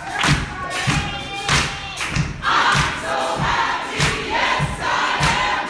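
Church congregation singing a gospel song together, with a steady beat of hand claps and low thumps.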